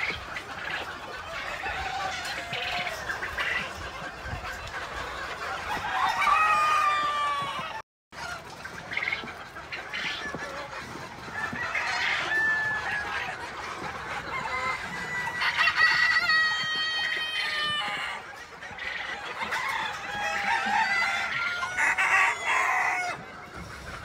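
A flock of penned chickens clucking and cackling without a break, with roosters crowing several times over it. The audio cuts out for an instant about a third of the way in.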